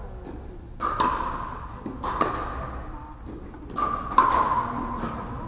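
Pickleball paddles hitting the plastic ball: a few sharp pocks a second or more apart, each ringing on in a large gym's echo.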